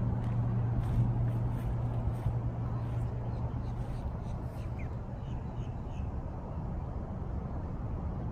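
Steady low rumble of distant road traffic, with a few short bird calls about halfway through.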